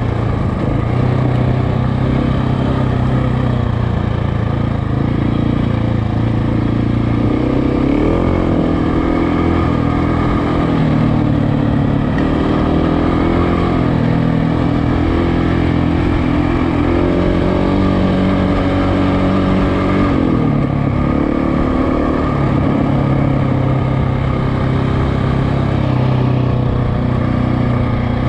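KTM motorcycle engine running under way, held at fairly steady revs. A couple of times the revs drop and climb again as the throttle is worked.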